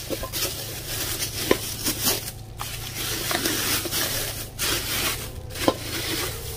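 Clear plastic bag crinkling and rustling in irregular bursts with sharp little crackles, as the wax warmer wrapped in it is handled and turned over.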